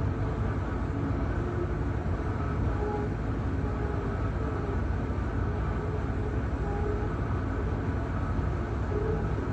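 Wood-Mizer band sawmill's engine running steadily at idle, a low, even rumble with no cutting.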